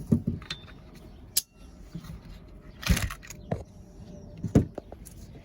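Sharp clicks and knocks of the cordless impact wrench's plastic housing and internal parts being handled and pulled apart, a handful of separate knocks with the loudest about three seconds in and again near the end.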